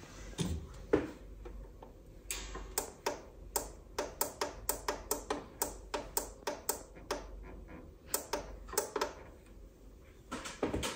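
A run of sharp clicks, about two or three a second, from the Meratronik V543 nixie multimeter as its power-supply filter capacitor discharges after switch-off. The clicks die out as the nixie display goes dark, and a short cluster of louder knocks comes near the end.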